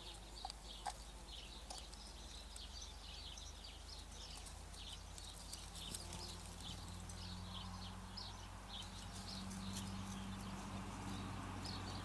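Small garden birds chirping and singing in the background, with a few faint taps near the start while a crow pecks at a feed dish. A low steady hum comes in about halfway and grows slightly louder.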